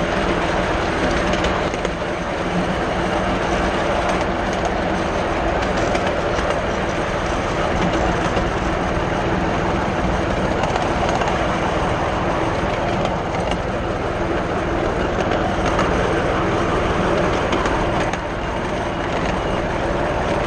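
Miniature railway carriages running along 7¼ inch gauge track: a steady rumble of steel wheels on the rails.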